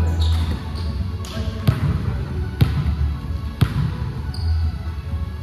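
A volleyball bounced on a gym floor, three knocks about a second apart echoing in the hall, over a steady low hum.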